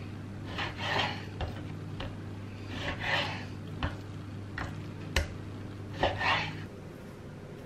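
Chef's knife cutting raw chicken thighs on a wooden cutting board: several sharp knocks of the blade on the board and three longer scraping draws of the knife through the meat. A low steady hum runs underneath.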